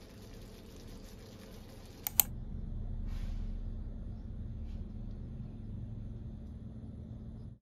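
Two sharp clicks about two seconds in, over low, steady room noise that then grows slightly louder and rumbling, with a soft rustle and a faint tick afterwards; the sound cuts off suddenly at the end.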